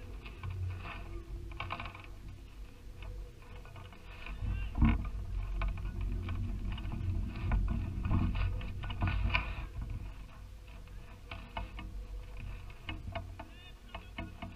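Low rumble of wind buffeting the microphone of a GoPro slung under a kite on a camera rig, with irregular clicks and rattles from the swinging rig, busiest in the middle.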